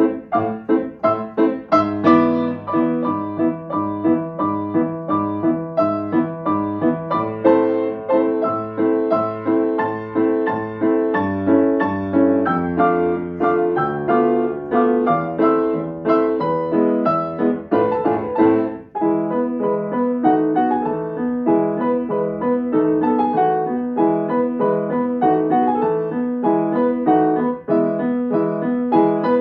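Grand piano played four hands: a brisk piece of densely packed notes with a steady pulse. The playing drops away for an instant about two-thirds of the way through, then carries on.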